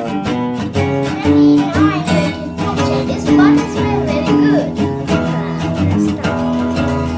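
Background music with a plucked acoustic guitar and a steady strummed rhythm, with a light singing voice over it.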